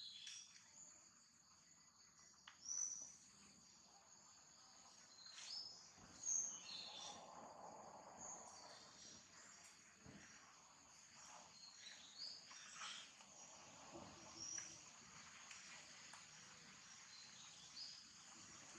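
Faint outdoor ambience: a steady high-pitched insect chirr, with short, falling bird chirps every second or two.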